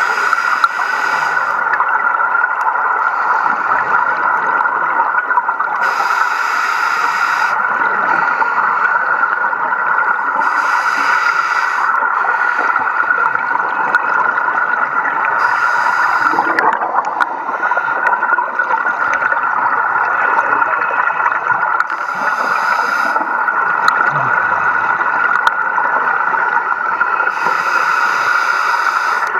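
Underwater sound on a scuba dive: a diver's regulator exhaust letting out a gurgling rush of bubbles with each breath out, every few seconds, over a steady background hiss.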